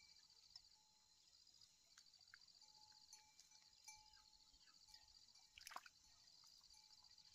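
Near silence: faint wet squelches and drips of hands pressing rice seedlings into flooded paddy mud, with one louder short splash about six seconds in. A faint steady high trilling runs in the background.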